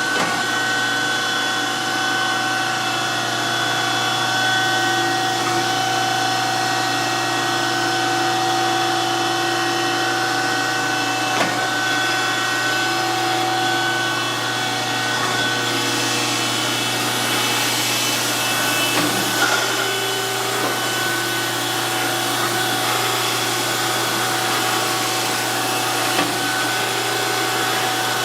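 DoAll surface grinder running steadily, its wheel grinding a Kurt vise, with a hiss that grows stronger about halfway through. A few light clicks.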